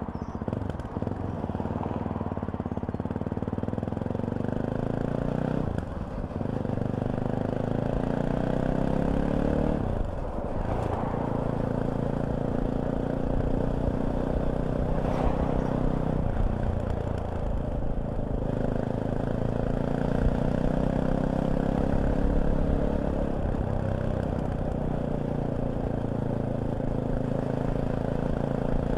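Fantic Caballero 500's single-cylinder engine running under way, its pitch climbing and dropping back several times as the gears change.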